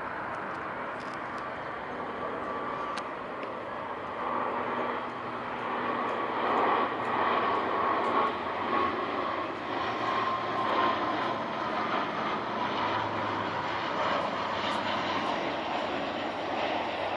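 Passenger airliner's engines passing close by, swelling to a loud rush a few seconds in and then easing slightly, with a whine that falls a little in pitch as the aircraft goes past.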